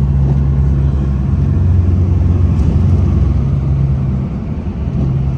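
Pickup truck driving: a steady low engine drone with road noise, heard from inside the cab. The drone shifts in pitch around two seconds in and eases briefly near the end.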